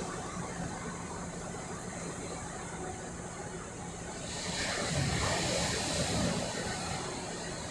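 Sea surf rushing steadily, swelling a little about four seconds in.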